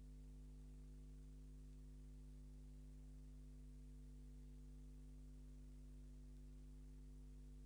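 Steady electrical mains hum with faint hiss on an otherwise soundless track; nothing from the scene is heard.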